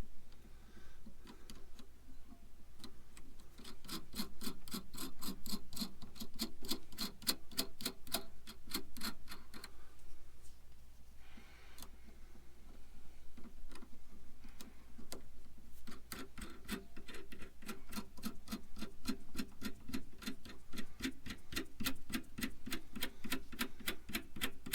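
Hand ratchet wrench clicking in quick, even runs of about five clicks a second, with two short pauses, as it tightens nuts down.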